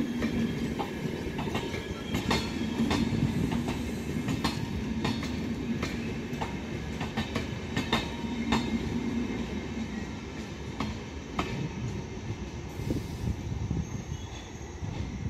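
Passenger train coaches rolling past on the next track, their wheels clicking irregularly over rail joints over a steady rumble. The rumble slowly fades as the last coach goes by.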